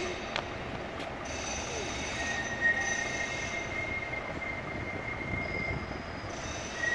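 Tram wheels squealing on a curved track: a steady high-pitched squeal begins about two seconds in, drops out briefly near the end and returns, over a low hum of city traffic.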